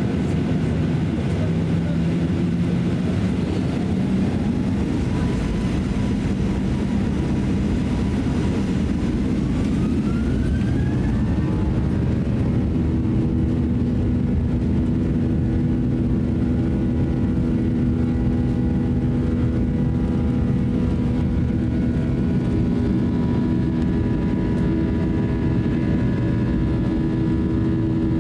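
Boeing 737-800's CFM56-7B jet engines heard from inside the cabin, spooling up for takeoff with a rising whine over the first ten or so seconds. They then run steadily at high thrust, a loud rumble with a steady whine on top, during the takeoff run.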